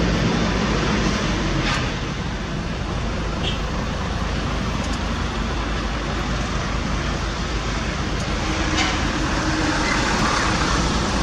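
Heavy truck running along a road: steady engine and road noise, with a few faint ticks.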